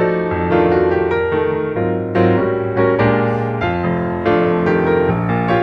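Background music played on a piano-style keyboard: a steady run of struck notes and chords.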